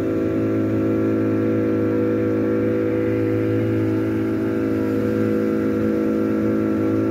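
Motorboat engine running at a constant speed, an even, unchanging drone.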